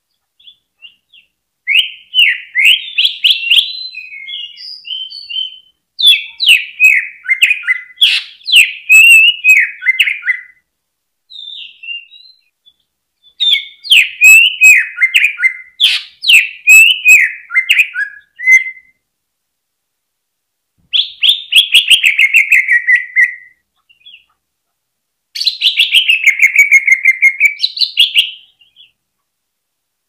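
Male cucak ijo (green leafbird) singing loud bursts of fast, varied chirps and trilled phrases, each a few seconds long with short pauses between. The last two phrases slide downward in pitch, and the final one swings back up at its end.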